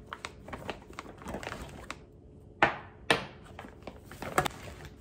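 Rustling and light clicks and knocks of food containers and wrappers being packed into a fabric lunch bag, with a few sharper rustles in the second half.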